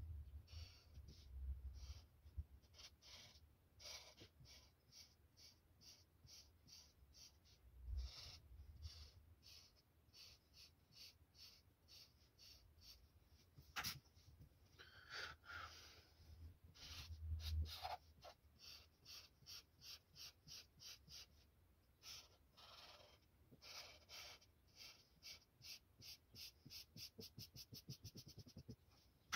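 Felt-tip marker rubbing back and forth on paper as a shape is coloured in, a rhythm of short scratchy strokes that speeds up near the end. A single sharp click about halfway through, and a few dull thumps as the hand and paper move on the table.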